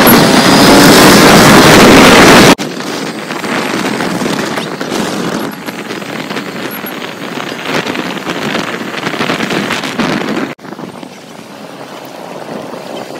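Wind rushing over the microphone with road and engine noise from a moving motor scooter. It is very loud at first, then cuts abruptly to a quieter level about two and a half seconds in, and again about ten seconds in.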